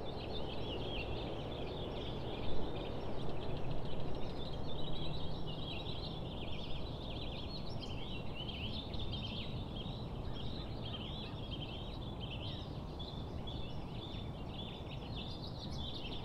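Birds chirping, many quick high calls overlapping steadily, over a low, even background noise.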